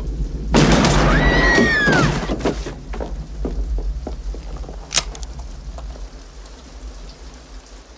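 A double-barrelled shotgun blast about half a second in, ringing on for about two seconds as it dies away, followed by a single sharp click about five seconds in.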